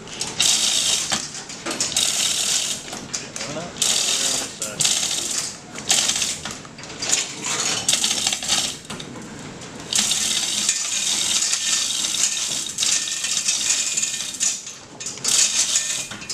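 Hand-chain hoist being hauled to lift an engine: the steel chain rattles and clinks through the hoist in repeated bursts, with the hoist's ratchet clicking.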